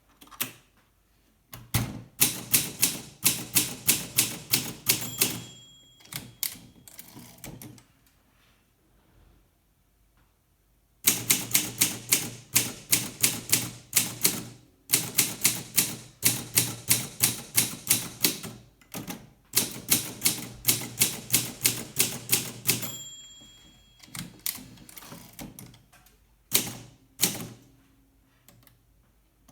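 Olympia SM2 de Luxe portable manual typewriter being typed on, about four keystrokes a second in two long runs with short pauses, then a few scattered strokes near the end. A short bell-like ding sounds twice, about five seconds in and near the end of the second run, as the margin bell would at the end of a line.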